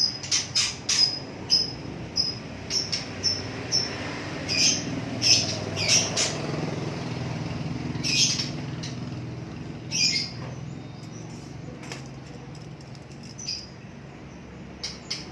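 A small cage bird giving short, high chirps and squawks, many in quick succession in the first half and more spaced out later. These are distress calls from a bird in pain while it is held and cut open to remove a fatty lump.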